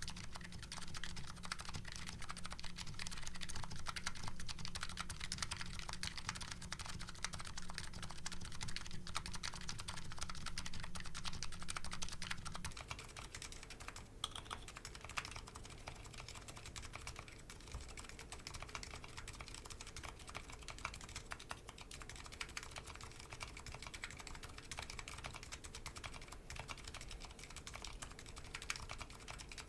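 Continuous typing on a Nuxros Kraze custom keyboard with MetaKeebs electro-capacitive switches, a dense stream of key clacks. About twelve seconds in, the keycaps change from CRP R5 to DCS Sleeper and the mic changes too, and the typing becomes quieter with less low end.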